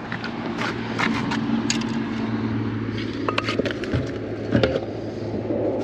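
A steady low engine hum, with scattered short clicks and scrapes over it.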